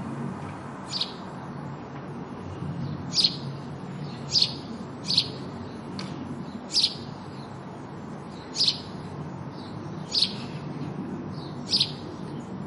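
House sparrow giving single short chirps, about eight of them spaced unevenly, over a steady low background rumble.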